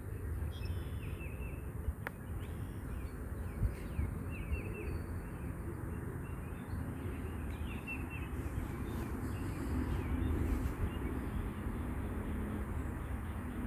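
Outdoor ambience of birds chirping in short, repeated phrases over a low, steady rumble.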